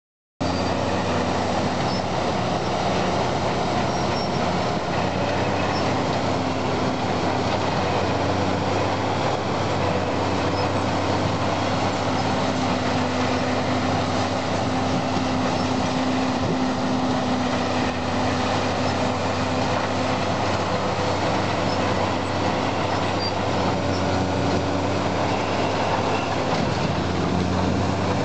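Galotrax tracked forestry mulcher working: its diesel engine running steadily under load, with a low steady drone, while the front rotor head grinds brush and stumps into the soil with a dense, even mechanical noise.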